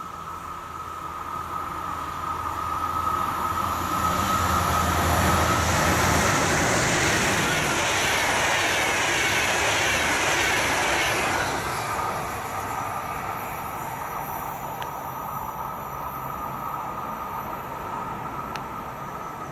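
An InterCity train, an Sr2 electric locomotive hauling double-deck passenger coaches, passes at speed. The rail and wheel noise builds, stays loud for several seconds while the coaches go by, then drops off about twelve seconds in and fades away. A steady high whine runs underneath.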